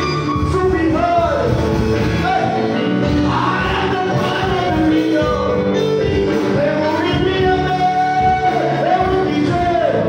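Live gospel praise singing: men singing into microphones through the church PA, with long held notes, over instrumental backing.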